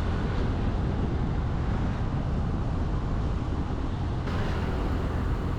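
Steady low rumble of riding a motor scooter: the engine and road noise under wind rushing past the microphone.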